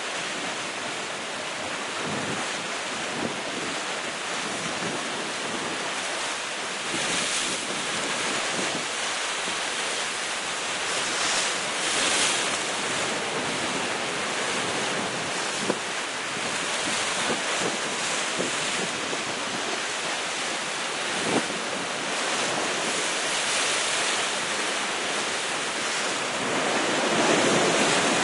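Sea waves breaking against the rocks at the foot of a cliff, a continuous surging wash that swells and eases, with wind buffeting the microphone. The surge builds strongest near the end.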